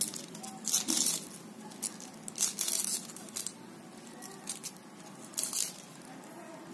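Cabbage being sliced by hand against a floor-mounted upright kitchen blade (kathipeeta, or boti): crisp crunching and tearing of the leaves as they are pushed through the edge, in short irregular clusters of cuts.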